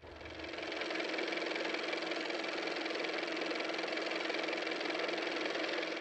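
Engine sound effect of an antique car, running steadily. It fades in over the first second.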